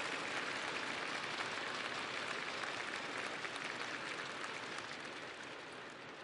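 Large audience applauding, the clapping gradually dying away toward the end.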